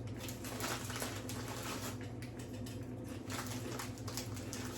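Crunchy chewing of potato chips close to the microphone: a dense, irregular crackle of small crunches.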